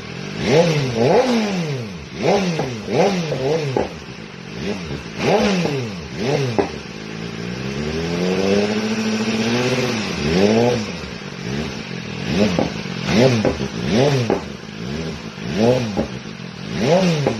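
A 2018 BMW S1000RR's inline-four engine, fitted with an AR GP1R slip-on exhaust, revved from idle in quick throttle blips about once a second. One longer, slower rev up and back down comes in the middle.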